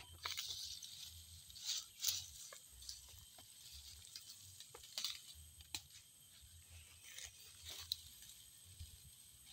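Faint rustling and crackling of dry grass and leafy plants being handled and picked by hand, with scattered sharp snaps of stems torn off, the loudest about two seconds in.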